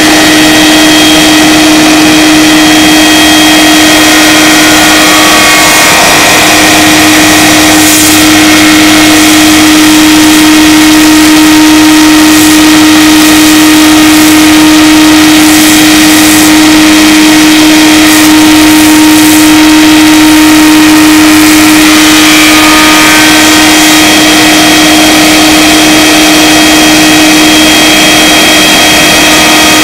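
Spindle shaper running with a loud, steady whine, profiling a raised panel. From about six seconds in to about twenty-two seconds in, the cutter is in the wood as the curved panel is fed along the bearing, adding a harsher cutting noise.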